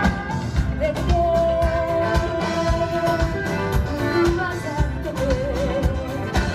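Live band playing with a singer, who holds long notes over a steady drum beat; the second long note wavers with vibrato.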